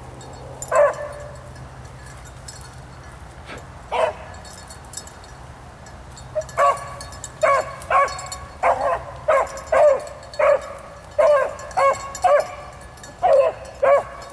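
A single beagle baying while running a rabbit's trail: a few separate calls in the first half, then a steady string of short, pitched bawls, more than one a second, from about halfway.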